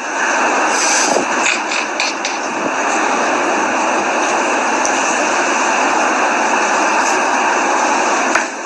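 Hurricane winds blowing outside, a steady dense rushing noise that eases briefly near the end.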